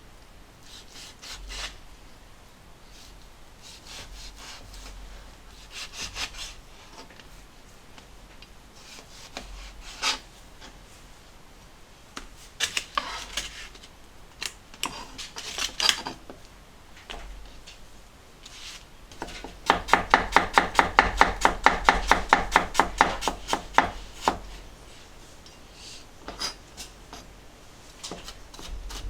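Knife chopping on a cutting board: scattered cuts and scrapes, then a fast even run of about five chops a second for some four seconds, about two-thirds of the way in.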